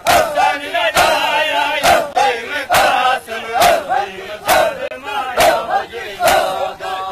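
Mourners doing matam, beating their chests in unison with a sharp slap about every 0.9 seconds. Between the beats, many men chant a Sindhi noha in a repeating rhythm.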